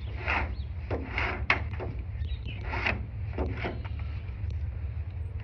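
Rigging line sliding and rasping as it is pulled through the lashing that binds an outrigger canoe's 'iako (crossbeam) to the ama (float). There are five or six short pulls in the first four seconds, over a steady low rumble.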